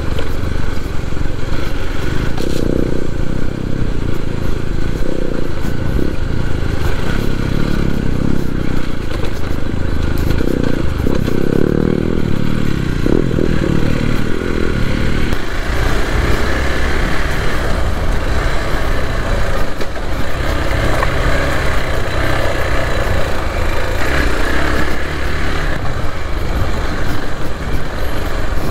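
Hero XPulse 200 4V motorcycle's single-cylinder engine running steadily while being ridden off-road. Its note changes about halfway through, with more higher-pitched noise from then on.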